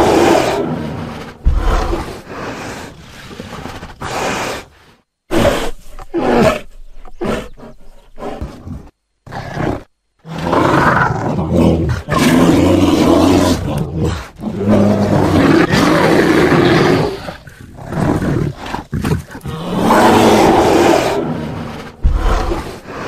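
Bear roars and growls, several in a row, some long and drawn out, with abrupt cuts to silence between a few of them.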